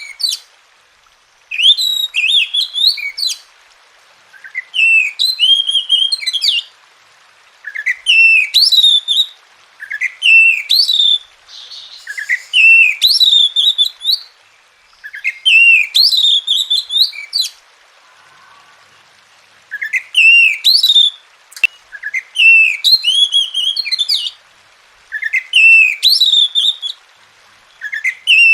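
Oriental magpie-robin (kacer) singing: one short phrase of rising whistled notes, repeated about every two and a half seconds with brief pauses between.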